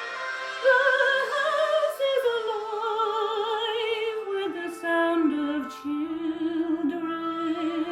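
A woman singing with strong vibrato in an operatic style, holding long notes on a melody that steps downward, over instrumental accompaniment.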